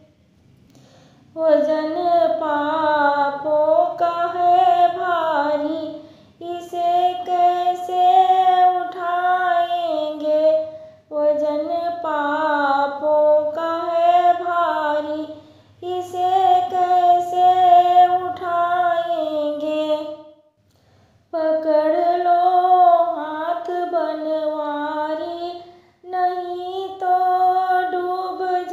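A woman singing a devotional Krishna bhajan solo, without accompaniment, in phrases of about four to five seconds separated by short pauses.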